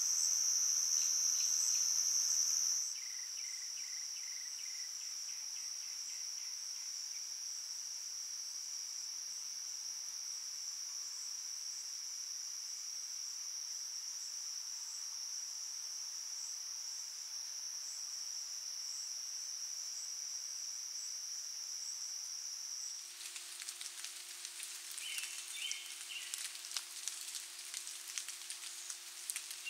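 Night insect chorus, a steady high-pitched trill that becomes a little quieter a few seconds in. About three-quarters of the way through it changes suddenly to a crackling hiss with a low steady hum.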